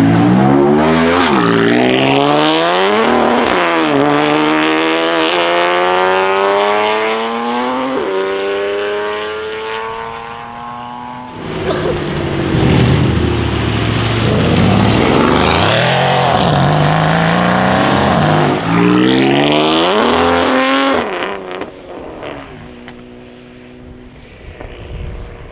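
BMW M3 F80's twin-turbo straight-six, straight-piped through a Milltek exhaust, revving hard again and again as the car pulls away and accelerates, its pitch sweeping up and down. After a sudden cut about a third of the way in, more loud, rougher revving follows, and it settles to a quieter steady drone near the end.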